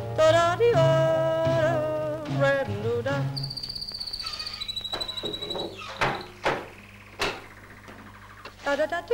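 High-voiced, yodel-like singing, then a high, pulsing chirp at two slightly different pitches, followed by a few sharp clattering knocks of kitchenware.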